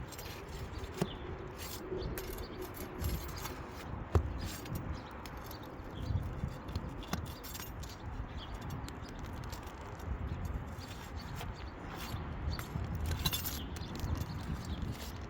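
Hand tools working at asphalt roof shingles: scraping and prying, with scattered clicks and taps and a sharper knock about four seconds in, over a low rumble.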